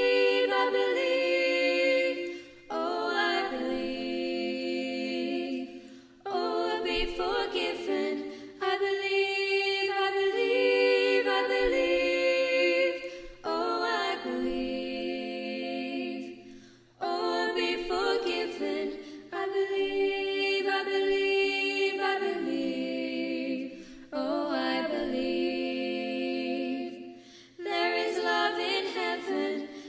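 Four young female voices singing a cappella in close harmony: long held chords in phrases a few seconds long, with brief breaks between phrases.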